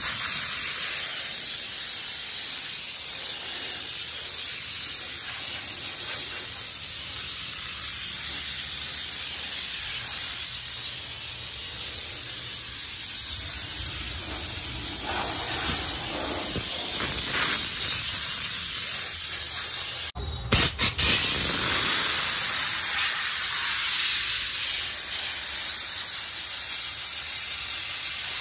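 Handheld steam cleaner gun jetting steam with a steady, high hiss. It cuts out for a moment about two-thirds of the way through, then restarts with a couple of short spurts before running steadily again.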